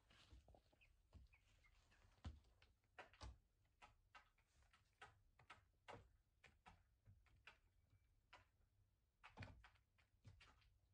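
Young chickens pecking and scratching in wood-shaving bedding: faint, irregular soft clicks and rustles.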